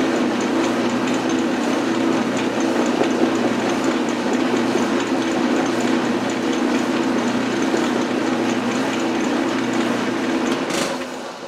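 Metal lathe running steadily with a faint regular ticking, a bearing held against the spinning stock to stop it wobbling in the chuck; the lathe winds down near the end.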